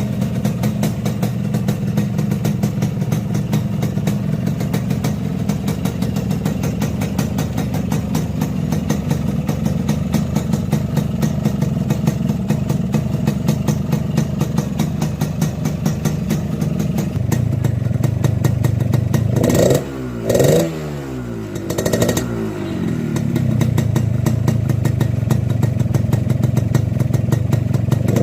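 Stock Yamaha RX-King's single-cylinder two-stroke engine idling with a rough, clattering 'ngorok' (snoring) sound. About two-thirds of the way through, the throttle is blipped three times and the revs fall back after each, then it settles into the idle again.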